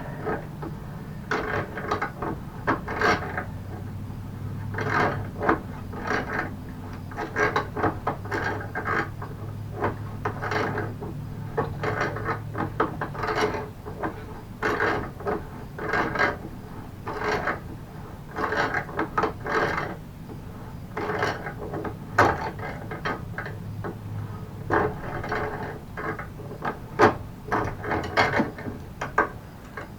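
A hand tool being worked on a stuck screw or bolt of a mobility scooter, making repeated clicking, ratchet-like strokes at an uneven pace of about one or two a second.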